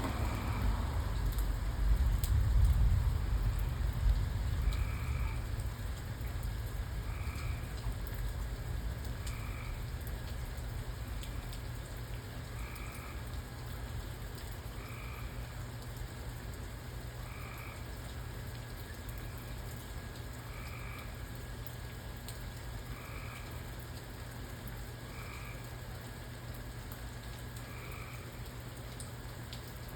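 Steady rain with a frog calling, a short croak repeated about every two seconds. A low rumble fades out over the first five seconds.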